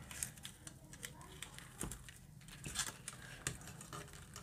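Light irregular clicks and rustling of thin electrical wires being handled and twisted together.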